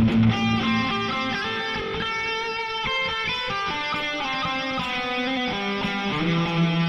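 Electric guitar played through a Mooer GE200 multi-effects processor: ringing, sustained notes and chords that change pitch every second or so.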